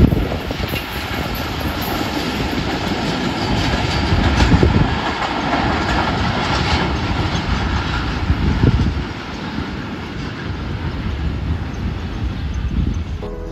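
Passenger train rolling past close by, its wheels clattering over the rail joints with a faint wheel squeal. It swells about four and a half seconds in and again near nine seconds, then eases off slightly.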